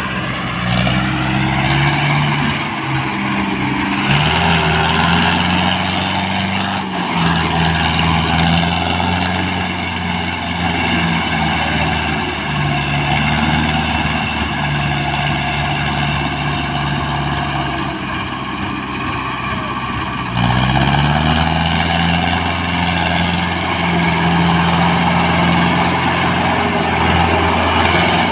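Diesel tractor engine running steadily under load, its pitch shifting with the throttle: it steps up about four seconds in and revs up again about twenty seconds in.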